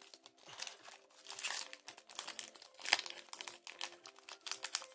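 Pokémon card booster pack wrapper crinkling and tearing as it is ripped open, a continuous run of irregular crackles with one sharper rip about three seconds in.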